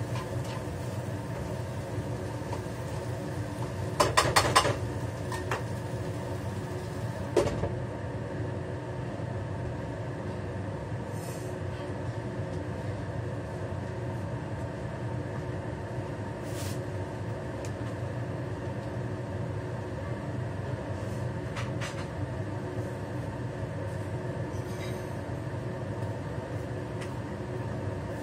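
Steady hum of a kitchen range hood fan running over a wok stir-fry. About four seconds in comes a quick run of metal clanks, a spatula striking the wok. A single knock follows a few seconds later, then a few faint clinks.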